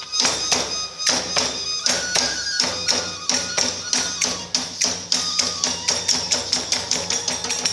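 Iwami kagura music: fast, driving drum strokes with ringing clashes of small hand cymbals (chappa), and a held flute line over them.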